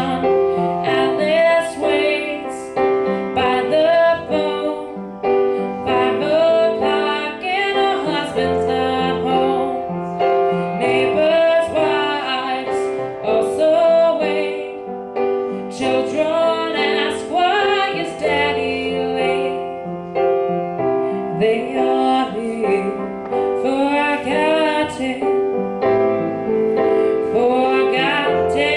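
Teenage girl singing a ballad into a microphone while accompanying herself on an upright piano with sustained chords; her sung phrases come with short breaks in which only the piano is heard.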